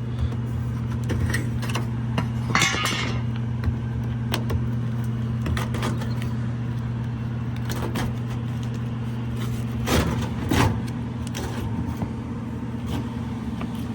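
A steady low machine hum, with scattered clicks and knocks of handling; the loudest come about ten seconds in.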